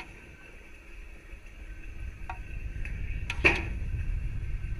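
Sound picked up by a rocket's onboard camera in flight: a steady high electronic whine under a low rumble that builds from about two seconds in. A few sharp clicks and knocks come through, the loudest cluster about three and a half seconds in.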